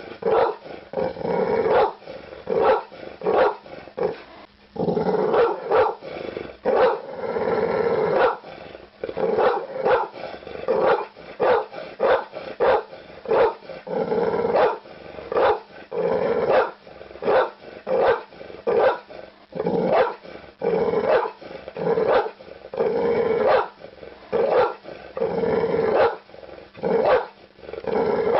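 A dog barking over and over, roughly one to two barks a second, with a few longer, lower calls between the barks.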